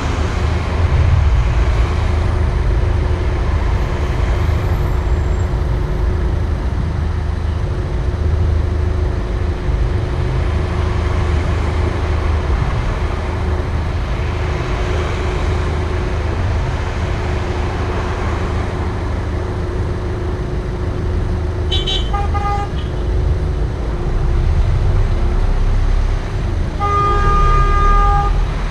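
Steady low rumble of idling traffic, heard from inside a car. A car horn gives a short toot about three-quarters of the way through, then a longer honk of over a second near the end.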